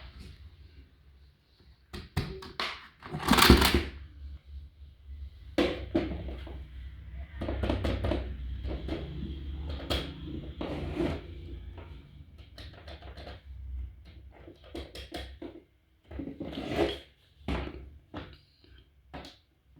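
Irregular knocks, clicks and scraping of small hard objects being handled and set down, the loudest a longer scrape about three and a half seconds in, over a low hum that dies away about two thirds of the way through.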